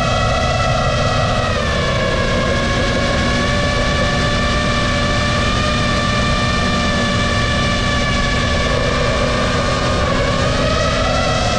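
FPV drone's electric motors and propellers whining steadily over a rushing noise. The pitch drops about a second and a half in and climbs again near the end.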